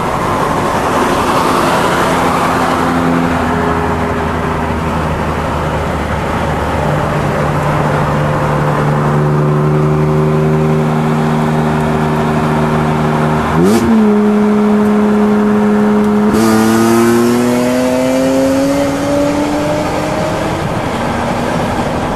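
A car engine pulling hard at highway speed over heavy wind and road rush. Its note holds, jumps up sharply about two-thirds of the way through, then climbs steadily.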